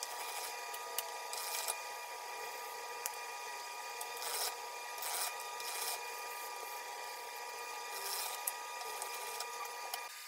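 Hand-cranked pasta machine turning and fresh pasta dough being handled on a floured wooden board: brief rasping, scraping swishes at irregular intervals with a few small clicks, over a steady high-pitched hum that stops near the end.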